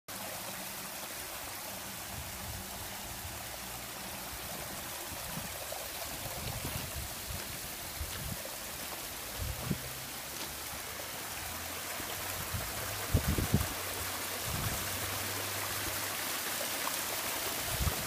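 Backyard pond waterfall splashing steadily as water tumbles over stacked boulders into the pond. A few brief low thumps come about two-thirds of the way through.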